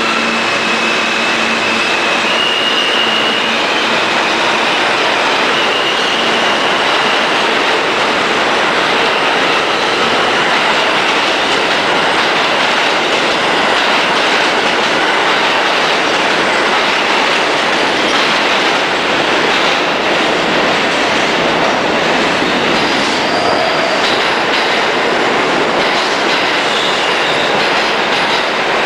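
New York City Subway trains running through an underground station: a loud, steady rumble of steel wheels on rail. High-pitched wheel squeals come in a few seconds in and again about three-quarters of the way through.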